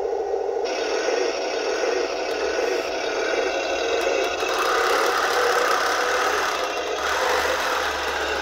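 Heng Long Tauchpanzer III RC tank's sound unit playing its simulated engine sound at full volume, a steady, rattling running note. About a second in, the noise of its drive and plastic tracks joins as the tank moves off, and it swells in the second half.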